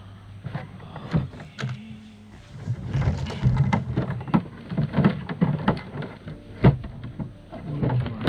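Irregular knocks, taps and clatter of objects being handled, busiest in the second half, over a faint steady low hum.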